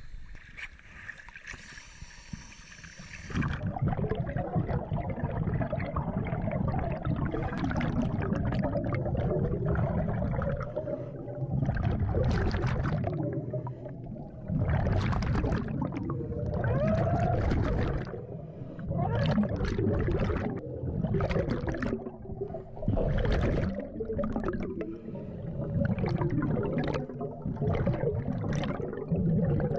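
Scuba regulator breathing heard underwater: bubbling, gurgling exhalations alternating with hissing breaths, surging every second or two. It starts about three seconds in, after a short quiet stretch at the surface.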